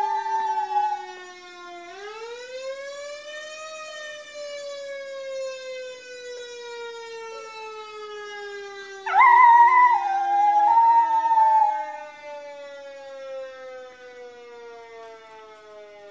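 A siren's long, smooth wail rises once about two seconds in, then slowly falls in pitch for the rest of the time. A schnauzer howls along with it at the start, and a dog's wavering howl comes in again, louder than the siren, about nine seconds in for some three seconds.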